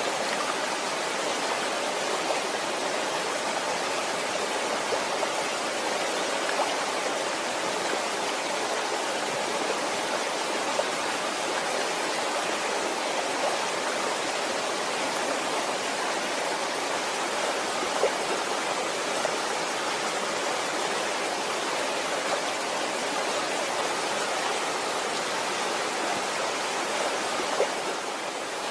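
Waterfall: a steady, even rush of falling water, with small splashes standing out now and then.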